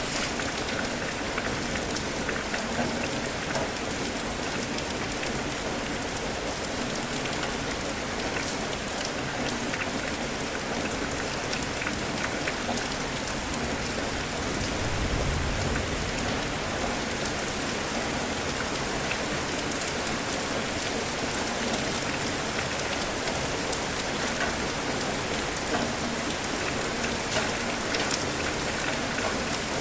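Steady rain falling on a surface, with scattered sharp drop ticks and a brief low rumble about halfway through.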